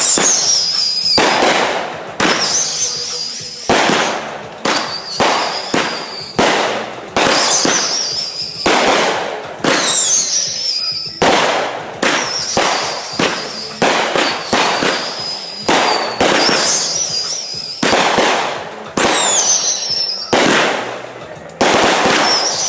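Consumer fireworks going off in quick succession: loud sharp bangs about once a second, with high whistles between them, some falling in pitch.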